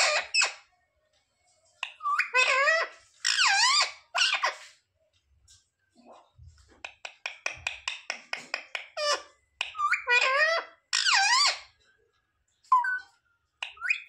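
Indian ringneck parakeet vocalizing in short bursts of squawky calls that bend up and down in pitch. About halfway through comes a quick run of short chirps, about six a second, lasting a couple of seconds.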